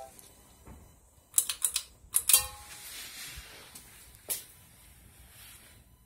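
A quick run of sharp clicks and light knocks about a second and a half in, another run around two seconds in, and a single click a little after four seconds. Under them is the faint steady whirr of a Harbor Breeze ceiling fan running.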